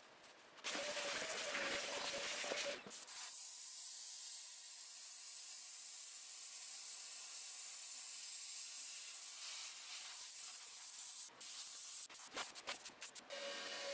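Steam cleaner gun jetting steam onto a plastic center console: a steady high hiss that breaks into several short spurts as the trigger is pulsed near the end. Near the start a louder rushing noise with a steady hum runs for about two seconds.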